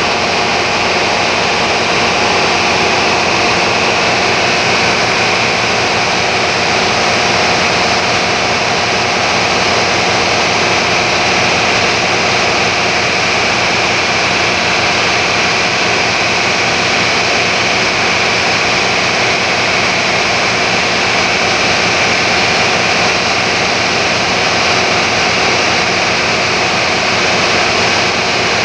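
Tourist boat's engine running steadily at cruising speed: a loud, unchanging drone with a faint steady hum in it.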